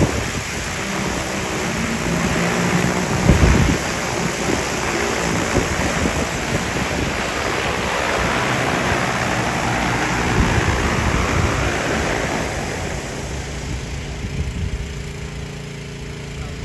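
Four-rotor agricultural spraying drone hovering low, its rotors and downwash making a loud, steady rushing whir, with a brief thump about three seconds in. The rush eases off over the last few seconds as the drone sets down, leaving a lower steady hum.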